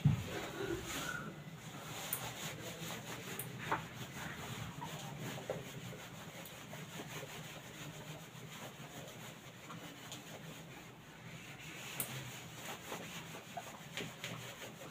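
Handheld duster wiping writing off a whiteboard: faint, steady rubbing strokes, with a couple of light knocks against the board.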